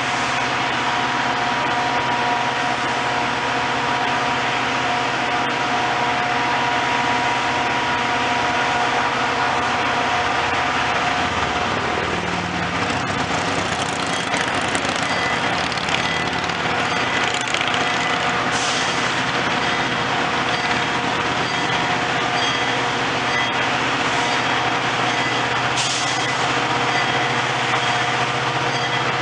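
Large diesel engine idling steadily with a constant whine, with two short hisses, about two-thirds of the way in and near the end.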